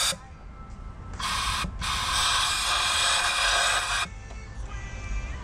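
Hissing bursts of pressurised spray blown into the engine's spark plug wells to clear oil that leaked in past the valve cover. A brief burst ends at the very start; about a second in another begins, breaks for a moment, then runs on for about two more seconds and stops.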